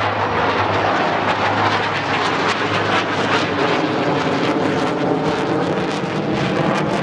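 KAI T-50B Golden Eagle jet trainers, each with a single F404 turbofan, flying overhead in formation, a loud steady jet noise.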